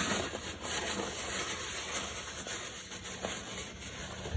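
Paper towel rustling and rubbing as hands are wiped off, the crumpled towel scrunched between the fingers.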